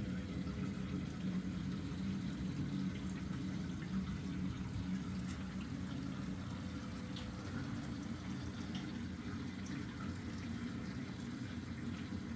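Steady running water and low hum from a reef aquarium's water circulation, with a faint steady tone and a few faint ticks.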